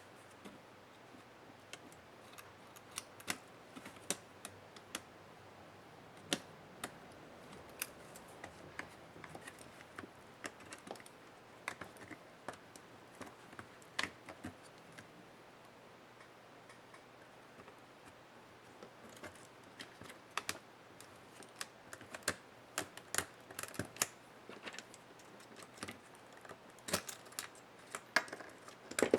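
Irregular small clicks and taps of laptop parts, plastic and metal, being handled and pried apart with small hand tools. They come in clusters with a quieter stretch in the middle.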